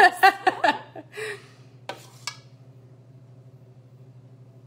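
Brief laughter from two women, then two light clicks of a spoon against a metal muffin tin as batter is spooned in, over a faint steady low hum.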